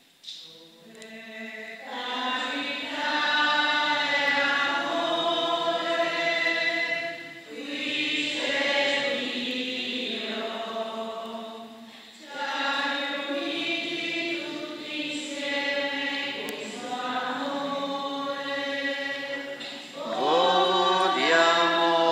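Voices singing a slow communion hymn in long held phrases, with short breaks about seven and twelve seconds in.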